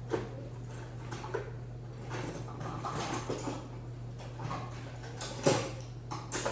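Kitchen handling noises: scattered light knocks and clatter as a hand mixer is fetched, with a sharper knock about five and a half seconds in, over a steady low hum.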